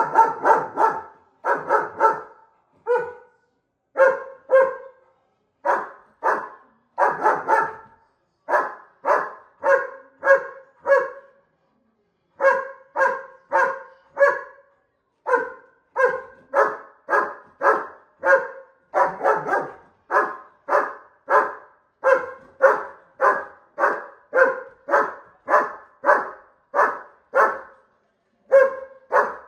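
German shepherd barking at a bull over and over, about two barks a second, in runs broken by short pauses.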